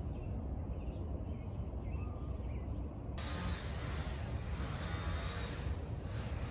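Outdoor ambience of steady wind rumbling on the microphone, with a few birds chirping in the first couple of seconds. About three seconds in, the sound cuts abruptly to a louder, steady, hissing wind noise.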